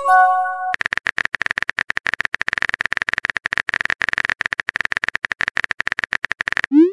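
Texting-app sound effects: a short chime as a message bubble appears, then about six seconds of rapid phone-keyboard typing clicks, and a quick rising swoosh near the end as the message is sent.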